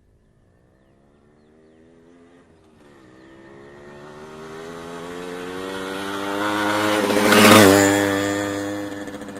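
A motorcycle passing by: the engine approaches from faint, its pitch rising steadily with a brief dip about three seconds in, grows loud as it passes close about seven and a half seconds in, then drops in pitch and fades as it moves away.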